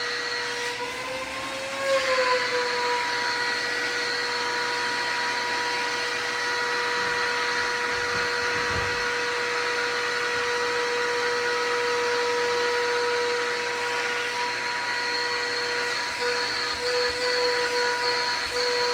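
Stanley 4-gallon wet/dry shop vacuum running steadily, a motor whine over a rush of air. Its pitch rises and grows louder briefly about two seconds in, then settles back, and it wavers again near the end.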